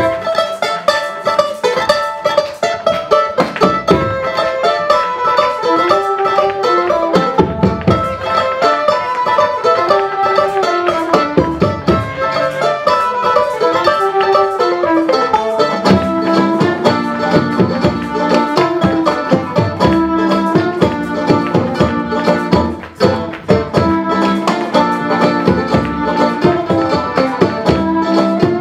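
Folk band playing an instrumental tune live, with plucked strings carrying a fast melody. About halfway through, a fuller low accompaniment comes in under the tune.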